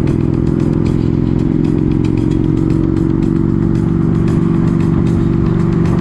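Motorcycle engine running steadily at highway cruising speed, with music playing over it.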